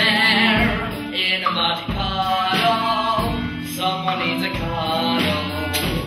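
Show tune performed live: singing over instrumental accompaniment, opening on a held, wavering note.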